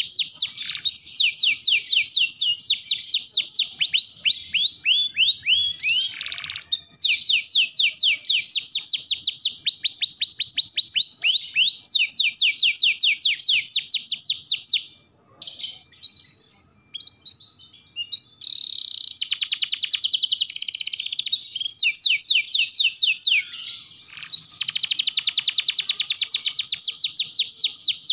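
Domestic canary singing a long, vigorous song of fast trills, rapid runs of repeated high notes that change from phrase to phrase. About halfway through the song thins to scattered notes for a few seconds before the dense trilling resumes.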